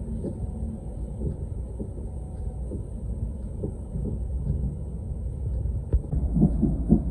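Steady low rumble of a passenger train running, heard from inside the carriage. A sharp click comes about six seconds in, and voices start just after it.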